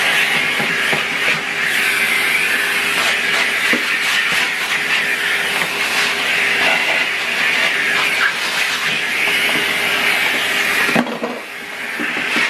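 Numatic Henry cylinder vacuum cleaner running, a steady rush of air with a faint hum and scattered clicks and knocks. The sound drops suddenly near the end and picks up again about a second later.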